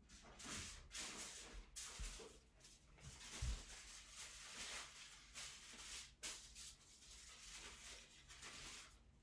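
Near silence: faint room tone with a few soft rustles and low knocks.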